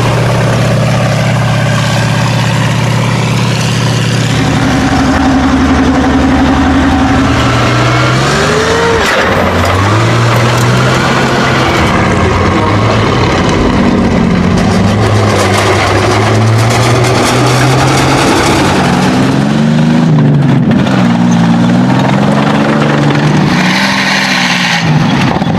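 Engines of heavy World War II armored fighting vehicles running and revving, under a dense rattling noise. The note holds steady at first, then rises and falls again and again.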